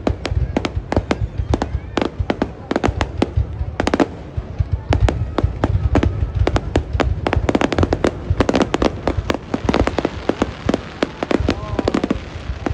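Fireworks going off in a dense, rapid barrage: many sharp bangs and cracks a second over a constant low rumble.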